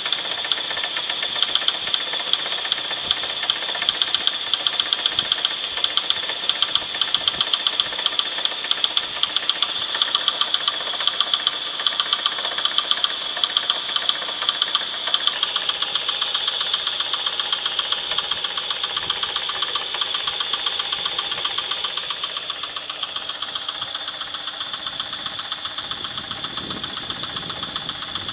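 1996 Chevrolet S10's 2.2-litre four-cylinder MPI engine running with a steady, evenly repeating sharp knock. At 146,300 miles this is an internal knock whose cause the owner does not know, enough to sell the engine for parts. It gets a little quieter near the end.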